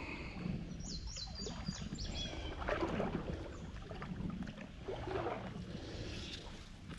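Creek water running with some splashing, and a bird singing a quick run of about six high, falling notes about a second in.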